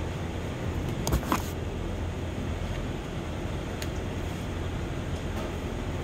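Steady low workshop hum, with two sharp clicks close together about a second in from plastic clips and connectors being handled inside a car door stripped of its trim panel.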